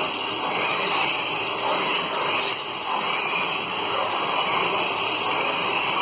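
1/24-scale Formula Truck slot cars racing round a multi-lane track: a steady whirring hiss of their small electric motors running in the slots, swelling and fading a little as the cars pass.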